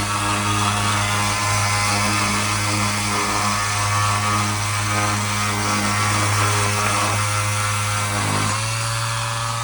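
Cheap orbital sander running against a turning wooden dowel: a steady motor hum with a hiss of abrasive on wood. About eight and a half seconds in, the pitch dips briefly, then settles to a smoother, steady tone.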